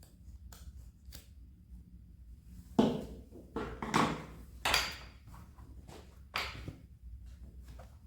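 A few knocks and clatters of household objects being handled, about five in quick succession with short ringing tails, over a faint low hum.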